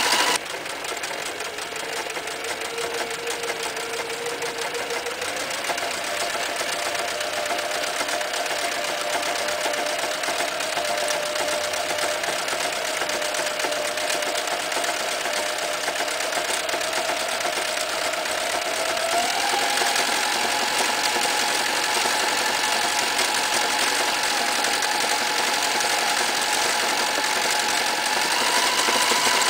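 Toyota 9060 electric sewing machine stitching decorative zigzag stitches through a leather strap, its motor running steadily and speeding up in steps: a little about five seconds in, more about nineteen seconds in, and again near the end.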